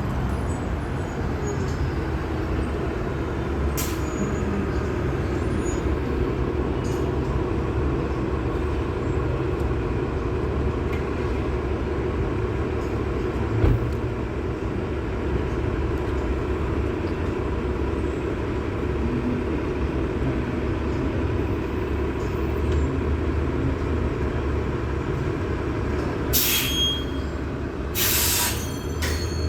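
Steady low rumble of a running vehicle engine, with a single knock partway through and two short, loud hisses near the end.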